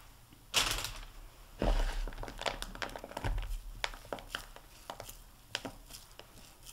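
Fingers squeezing and rolling a crumbly chopped-pecan mixture into a ball: soft crackling and rustling, with three louder rustling scrapes in the first few seconds.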